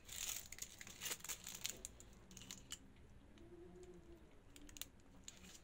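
Light handling noises of cake assembly: rustling and a scatter of small clicks and taps, busiest in the first two seconds, then sparser.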